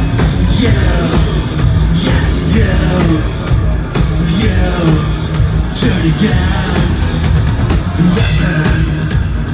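Loud live electro-industrial band music, with a drum kit and synthesizers playing.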